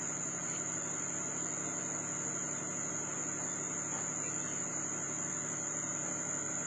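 A steady high-pitched whine held on one pitch, with a low hum beneath it and no chirping rhythm.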